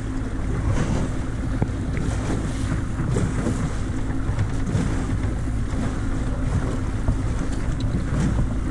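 Outboard motor running steadily, pushing a small aluminium jon boat through the water, with a low hum under water rush and wind buffeting the microphone.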